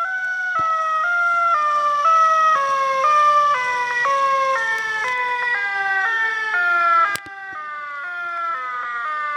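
Homemade electronic siren sounding: a single pitched tone that falls slowly in small steps, each about half a second long, with several overlapping copies of the stepped tone; near the end the pitch begins to climb again. A sharp click about seven seconds in briefly drops the level.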